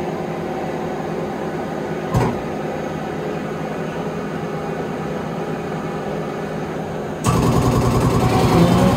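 Steady hum of running machine-shop machinery, with several steady tones, one brief knock about two seconds in, and a louder, rougher machine noise starting abruptly about seven seconds in.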